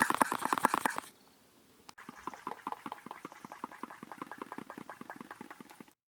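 Whisk beating egg whites in a bowl: rapid, even clicking of the wires against the bowl, about ten strokes a second. It is loud for the first second, pauses briefly, then carries on more quietly until just before the end.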